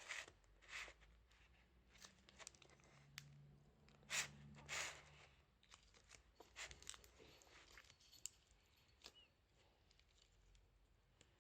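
Slime being squished and pulled apart by hand: short, sticky tearing crackles, the loudest about four seconds in, with many small clicks and pops between them.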